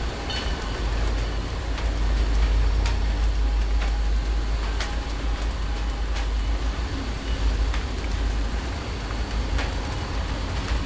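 Low, rolling rumble of distant thunder, swelling slightly a couple of seconds in, with scattered sharp ticks of raindrops.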